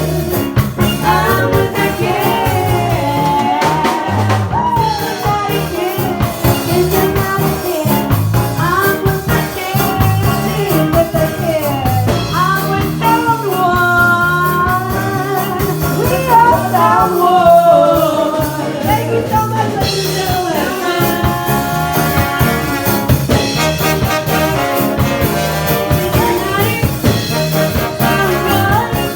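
Live band playing a song, with a lead vocal singing over a steady beat of drums and bass.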